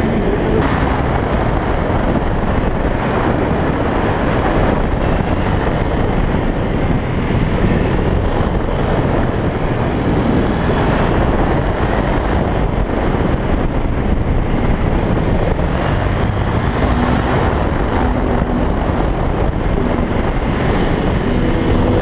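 Wind rushing over the camera microphone on a KTM 390 motorcycle, with its single-cylinder engine running under it at a steady cruise.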